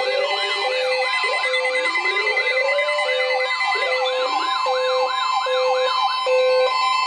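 Weather alert radios sounding their siren alarms together for an incoming severe thunderstorm warning. Electronic tones overlap: a fast up-and-down warble about two and a half times a second, slower rising wails, short repeated beeps and a steady tone.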